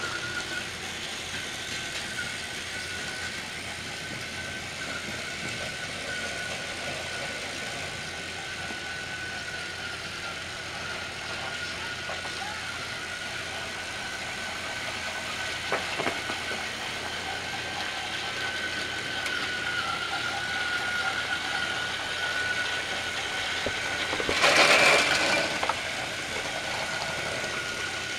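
Battery-powered TrackMaster toy trains running on plastic track: a steady small electric motor whine over the rattle of wheels. There is a short click about 16 seconds in, and a louder, noisy burst lasting about a second near the end.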